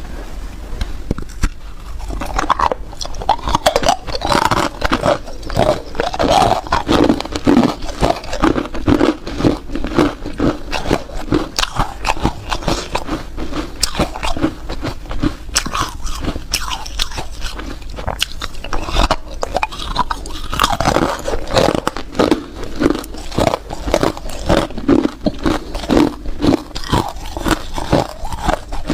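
Hard ice being bitten and chewed close to the microphone: a dense run of loud, rapid crunches that goes on without a break.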